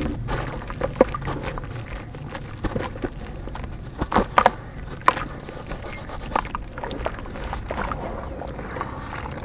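Clumps of dirt being crushed and crumbled by hand: irregular crunching and crackling, with a few sharper cracks about four to five seconds in.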